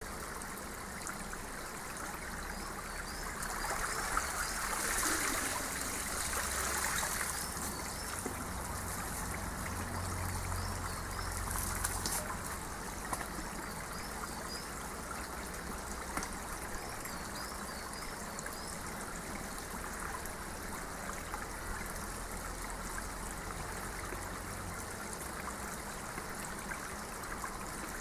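Shallow running water trickling over stones into a stone-lined pool, a steady wash of sound that swells for a few seconds about four to seven seconds in.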